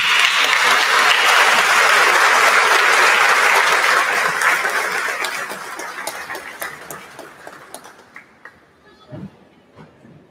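Audience applauding, loud at first and dying away over about eight seconds, with a few scattered last claps near the end.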